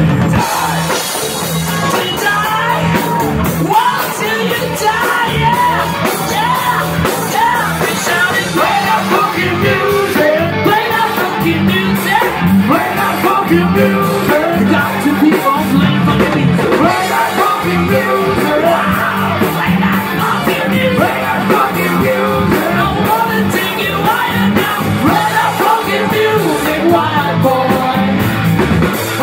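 Live rock band playing a song: a man singing lead vocals over electric guitar, bass guitar and drums, loud and unbroken.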